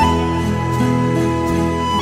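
Background music: a slow instrumental melody with long held notes over a steady low accompaniment.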